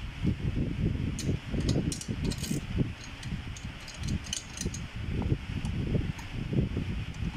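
Hand tools and bicycle parts being worked: scattered small metallic clicks and clinks, bunched in two spells, over continual low rubbing and knocking.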